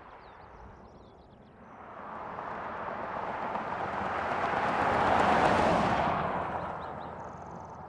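A car driving past on the road: tyre and engine noise swells to its loudest about five seconds in, then fades away.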